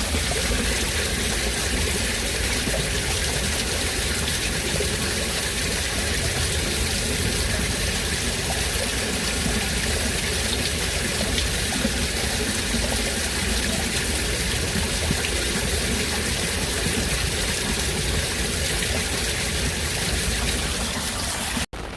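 Heavy rain pouring down in a steady, dense rush of water, with no separate drops standing out. It cuts off abruptly near the end.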